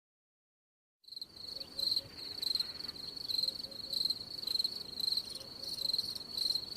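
Stock cricket sound effect: crickets chirping in an even pulsing rhythm, about two chirps a second, starting about a second in after a silent gap. It is the gag sound for an awkward silence.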